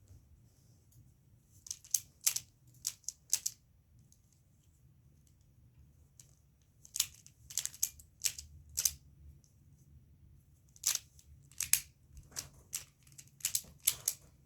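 Plastic twisty puzzle being turned by hand: quick, sharp clicks of the layers snapping round, in three bursts of turns with pauses between.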